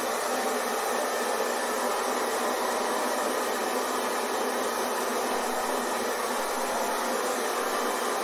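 Hair dryer blowing with a steady, unchanging whoosh, played as white noise to soothe a baby to sleep.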